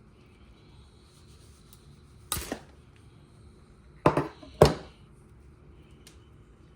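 Three sharp knocks, each with a short rattle after it: one alone, then two more close together about half a second apart.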